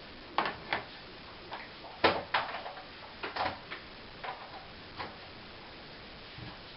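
Irregular clicks and light knocks of a mains plug and cable being handled and plugged in, the loudest about two seconds in; the mini angle grinder's motor is not running.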